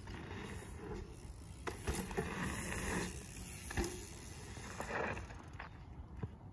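Mountain bike riding over packed-dirt jumps: knobby tyres rolling and scuffing on dirt, with a few sharp knocks and rattles from the bike over the lips and landings. It is loudest about two to three seconds in.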